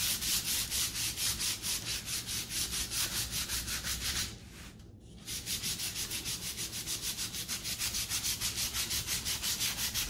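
Hand sanding with sandpaper on a painted MDF frame: quick, short back-and-forth strokes, about five a second, rasping through the paint to distress it. The strokes stop for about a second a little before halfway, then carry on at the same pace.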